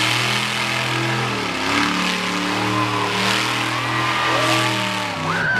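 Monster truck engine revving up and down several times while its wheels spin on the grass. A thin higher whine rises alongside the revs near the end.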